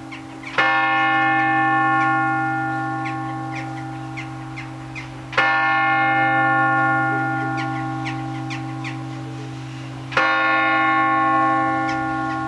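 A large church-tower bell striking the hour, three strokes about five seconds apart. Each stroke rings on with many tones over a low hum and fades slowly until the next.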